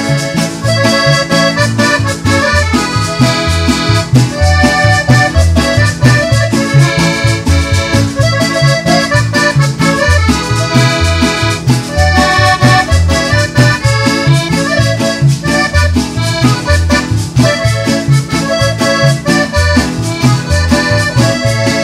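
Instrumental break of a conjunto band's ranchera song: accordion playing the melody in held and running notes over a bouncing bass line and a steady beat, with no singing.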